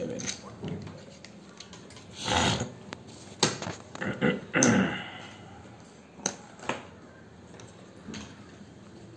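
Ceramic poker chips and a hard plastic chip case being handled: a few sharp clicks and knocks, and two longer rattling scrapes in the first half.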